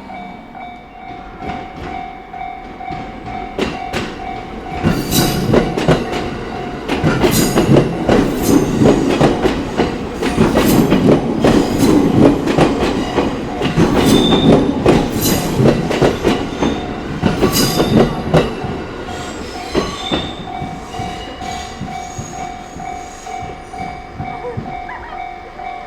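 A Japanese level-crossing warning bell rings with a steady repeating tone. From about five seconds in, a train runs loudly over the crossing for some fourteen seconds, its wheels clacking rhythmically over the rail joints. The bell keeps ringing alone after the train has passed.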